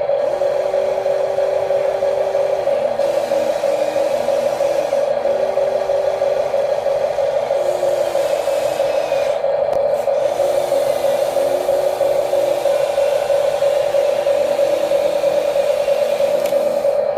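Small electric motors of RC construction models whining at a steady pitch, with a second, quieter whine that steps up and down every second or two as the machines change speed.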